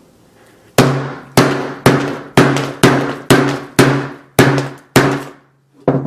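A 2.5-pound hammer bashing an iPhone 6s's screen, about nine hard blows roughly two a second, each a sharp crack with a short ring, shattering the glass. A lighter knock comes near the end.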